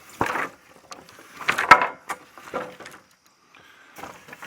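Rough-sawn wooden boards knocking and clattering together as they are handled, in about three separate bursts, the loudest about a second and a half in.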